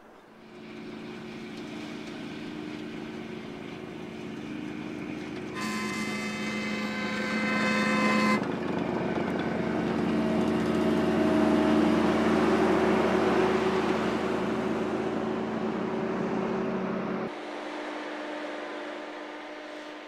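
Railway rotary snowplow motor car running along the track, its engine hum and the rush of its snow blower growing louder as it comes close and passes. A horn sounds for about three seconds a little after five seconds in. The sound drops off suddenly near the end.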